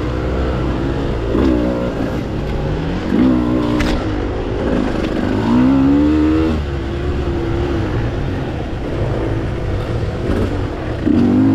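Engine of a ridden off-road machine revving up and dropping back again and again as the throttle is worked, with a sharp click about four seconds in.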